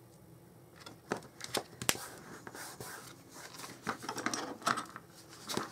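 Cardstock being handled, lined up and pressed down by hand: scattered light taps and paper rustling that begin about a second in, with a sharper tap about two seconds in and another near the end.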